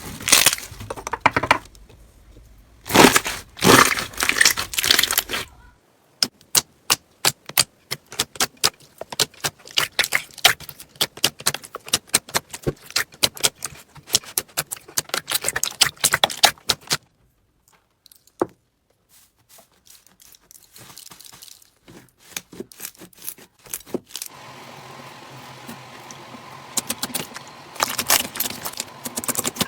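Slime being worked by hand: bursts of crunchy crackling, then a long run of sharp clicks and pops. After a quieter stretch, a soft steady squish follows, with crackling again near the end.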